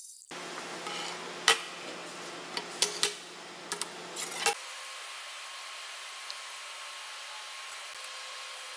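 Stainless steel flat bar being handled on a steel welding table: several sharp metallic clanks and taps in the first half, the loudest about a second and a half in. After that only a steady background hiss remains.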